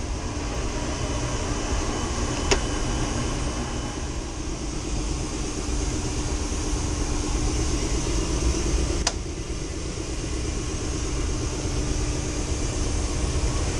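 Steady drone of running HVAC machinery in a mechanical room: fans and motors with a low hum and a faint steady tone. Two sharp clicks break it, about two and a half seconds and nine seconds in.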